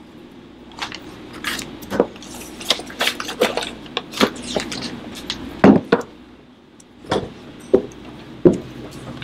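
Pencils scratching on paper and small irregular knocks and clatters on a tabletop, over a steady low room hum.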